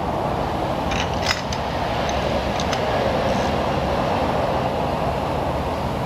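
Steady rushing machine noise, like a running shop fan, with a few light clicks about a second in and again just before the middle.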